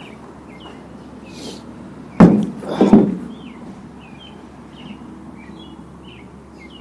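Two loud knocks about half a second apart, each with a short ring-out, over faint bird chirps.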